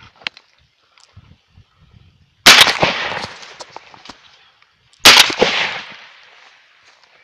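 Two shotgun shots about two and a half seconds apart, each sharp and very loud, echoing off for about a second, fired at ducks on the river.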